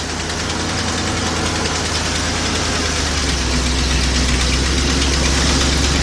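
Truck engine idling steadily, freshly started after its failing starter was hit to make it engage. It grows a little louder partway through.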